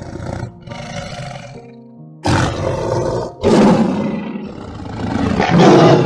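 A large animal roaring: a run of rough, loud roars about a second long each, the loudest near the end, with background music underneath.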